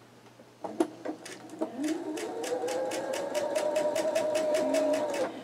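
Electric sewing machine stitching a quilt seam. A few clicks about a second in, then the motor whine rises and holds steady with a rapid, even ticking of the needle, and cuts off suddenly near the end.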